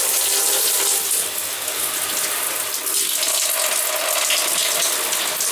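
Shower running: water from a Waterpik shower head spraying onto a tiled wall in a steady rushing hiss.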